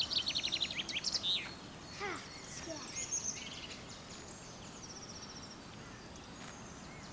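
Woodland birds singing over a steady faint background hiss. A quick run of rapid, high repeated chirps comes in the first second or so, then scattered sweeping notes and short high trills.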